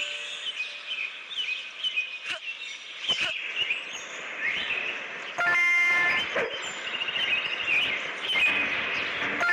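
Birds chirping and twittering, with a few sharp clicks. A loud horn-like honk, the loudest sound, cuts in about five and a half seconds in and lasts under a second, and another starts right at the end.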